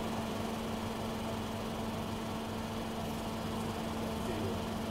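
Steady room tone: a constant low hum over an even background hiss, with no distinct event.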